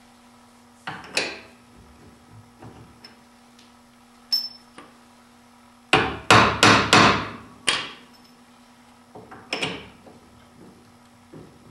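Hammer tapping the bolt through the rear suspension vertical link and leaf-spring eye of a Triumph Spitfire, metal on metal. A few scattered taps come first, then a quick run of five or six taps about six seconds in, and one or two more near the end.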